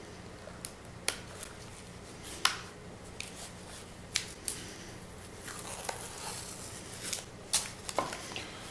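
Blue painter's tape being peeled up and a thin plywood stencil lifted off a painted board: scattered sharp clicks and crackles of tape and wood being handled.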